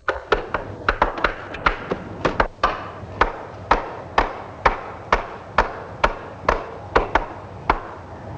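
Repeated hammer blows on wood, about two a second and fairly even: the second rail of a wooden fruit ladder being driven down onto the ends of the rungs.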